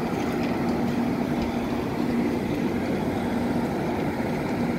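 A railway train's steady mechanical hum, with a low droning tone that fades in and out every second or so.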